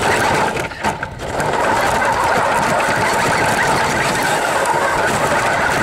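RC car's electric motor and gears whirring steadily under drive, close to the onboard camera, settling into an even, constant whirr after a brief dip about a second in.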